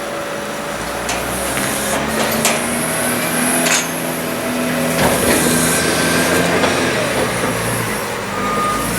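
JCB wheel loading shovel's diesel engine working hard as it pushes a load of chopped maize up the silage clamp with its bucket, the engine note rising and falling, with a few sharp knocks. Near the end its reversing beeper starts.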